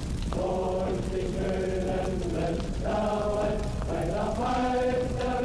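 Film score: choral voices holding long, slow notes that step to a new pitch every second or two, over a dense low bed.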